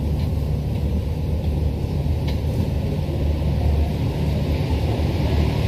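Steady low rumble of rubber-tyred Paris Metro Line 1 trains in a tunnel, with another train approaching on the adjacent track.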